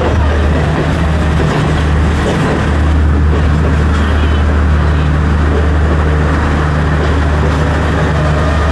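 Diesel train standing at the platform with its engine running: a steady low drone that holds level throughout, with a noisy mix of platform sounds above it.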